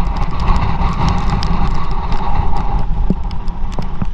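Muffled, steady rumble with many scattered sharp clicks, picked up through a camera's waterproof housing.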